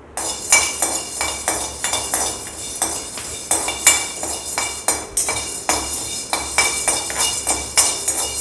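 Perforated metal spoon stirring and scraping black peppercorns and fenugreek seeds around a hammered metal kadai as they dry-roast: a quick, uneven run of metal-on-metal clinks and scrapes, with the peppercorns rattling against the pan and a faint ringing from the pan.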